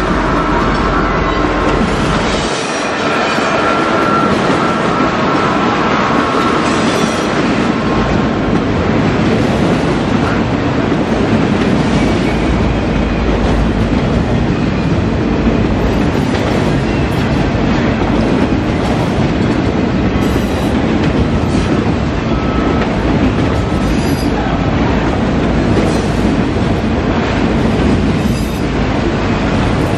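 Loaded autorack freight cars rolling past on the rails, a steady loud rumble and clatter of steel wheels over the track. In the first few seconds, as the locomotives go by, there is a deep rumble and a high squeal of wheels on rail.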